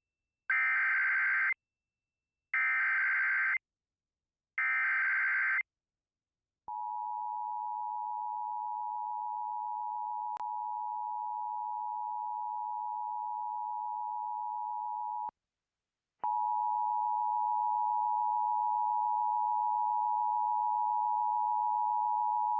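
Emergency Alert System SAME header: three one-second bursts of digital data tones, followed by the EAS two-tone attention signal starting about seven seconds in. The tone breaks off for about a second and resumes louder. Together they open a Tornado Warning alert.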